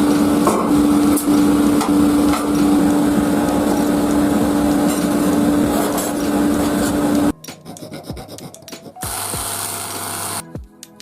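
A power tool's motor runs steadily while an abrasive rubs and rasps against rusty metal, cutting off suddenly about seven seconds in. Lighter, scattered workshop sounds and a brief hiss follow.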